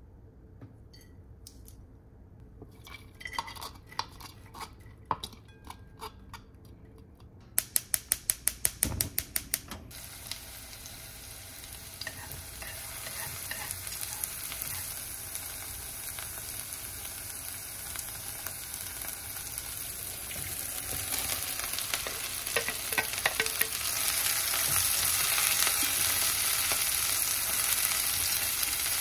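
A few scattered taps, then a quick run of even clicks like a gas stove's igniter. After that, chopped green onion starts sizzling in hot sesame oil in a pot and is stirred with chopsticks. The sizzling grows louder about three-quarters of the way through as cabbage and carrot are stir-fried, with a few clatters of chopsticks against the pot.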